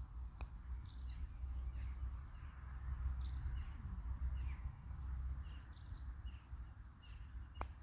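Small birds chirping in short repeated phrases about once a second, over a steady low rumble. A faint click comes just after the start and a sharp click near the end.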